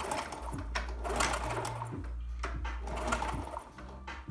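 Honda C70 Super Cub's 70cc single-cylinder engine being turned over without firing, a mechanical clatter and clicking, while its pulled spark plug is tested for spark: it gives no spark.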